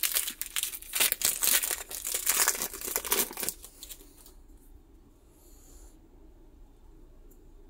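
Pokémon booster pack wrapper crinkling and tearing as it is ripped open by hand, lasting about three and a half seconds. After that only a few faint rustles of the cards being handled.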